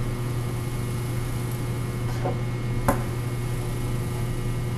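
Steady low electrical hum, with one short sharp click a little under three seconds in.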